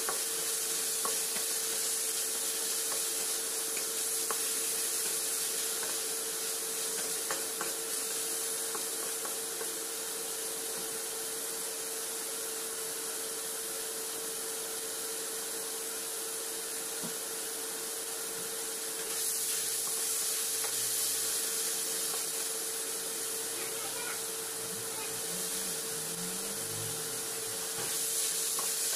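Pieces of meat sizzling and frying in a hot wok, stirred and scraped now and then with a spatula, over a steady hum. The sizzle grows louder about two-thirds of the way through and again near the end, as more ingredients go in.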